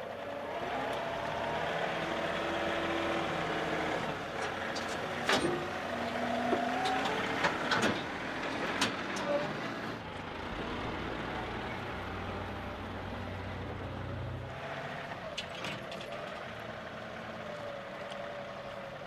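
John Deere 2038R compact tractor's diesel engine running steadily as the tractor is driven off a trailer, with a few sharp metallic clanks along the way.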